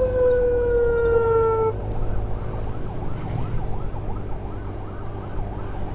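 Emergency siren sounding one long tone that slides slowly down in pitch and cuts off a little under two seconds in, followed by a fainter, fast-warbling siren. Throughout, the riding motorcycle's engine and wind noise rumble underneath.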